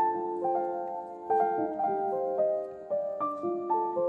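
Background music: a melody of ringing, piano-like notes.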